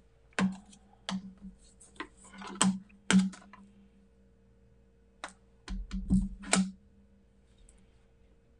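Sharp clicks and taps of a date stamp and ink pad being handled, with the pad's case opened and the stamp inked. Around six seconds in comes a short cluster of heavier knocks with a dull thud as the stamp is pressed down onto the paper.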